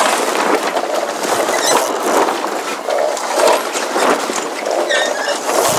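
Sails of a becalmed sailing yacht slatting and flapping in almost no wind: a dense rustle of sailcloth with many irregular sharp snaps.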